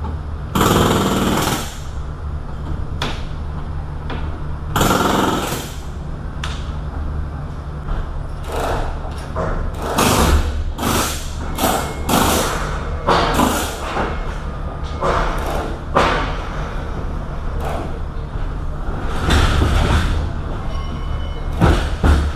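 Steady low mechanical hum inside an empty refrigerated trailer, broken by a series of loud, noisy bursts. Two longer bursts come in the first few seconds, and shorter ones follow more often after about eight seconds.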